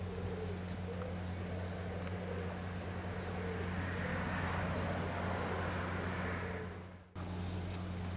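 Outdoor ambience of distant road traffic: a steady low hum, swelling and fading midway as a vehicle passes, with a few faint high chirps. The sound cuts out briefly about seven seconds in.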